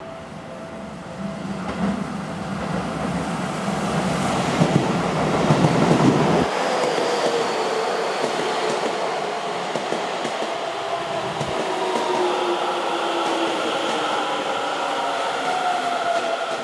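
Seibu 30000 series electric train pulling into the station and slowing, with a low rumble that cuts off suddenly about six seconds in, then the falling whine of its traction motors as it brakes, over the rolling noise of the wheels.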